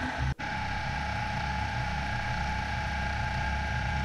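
Milling machine running with its cutter milling flats on a small metal part held in a collet block: a steady motor whine over a low rumble. The sound drops out briefly about a third of a second in, then carries on unchanged.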